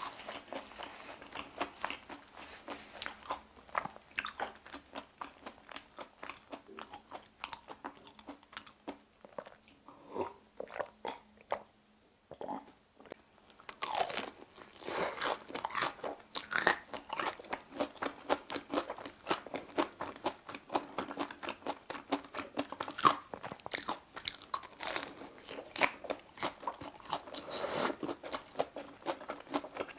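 Close-miked crunchy chewing of a sugar-coated, deep-fried Korean hotdog, in quick small crackles. It thins out for a few seconds around the middle, then a bite into the crust about halfway through starts louder, denser crunching.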